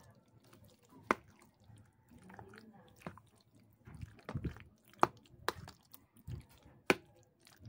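Spoon stirring creamy macaroni salad in a container: soft, wet squelching of the coated pasta with several sharp clicks of the spoon against the container's side.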